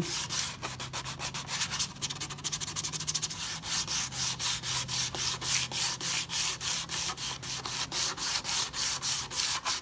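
Sandpaper rubbed back and forth over the Chrysler 300's painted center console trim in quick, even strokes, about four a second, taking off the chipping, faded paint to get the surface smooth for repainting.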